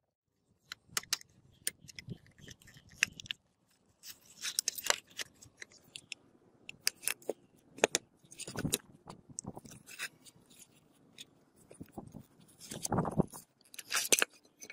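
Rusty double-barrel shotgun parts being handled and taken apart on concrete: scattered sharp metal clicks and clinks with a few short scrapes.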